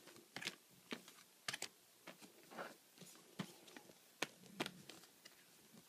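A stack of postcards being handled and flipped through: faint, irregular light clicks and taps of card stock.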